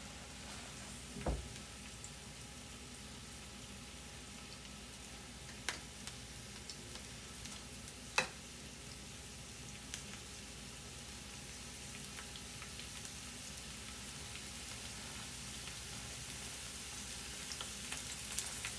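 Sliced garlic frying in avocado oil in a nonstick pan, a faint steady sizzle that grows a little louder toward the end, with a few sharp clicks scattered through it. The garlic is being fried slowly until fragrant.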